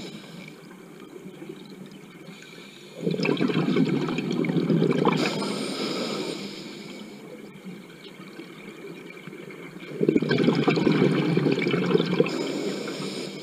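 Scuba diver breathing through a regulator underwater: two long rushes of exhaled bubbles, the first about three seconds in and the second about ten seconds in, with a quieter hiss of inhaling between them.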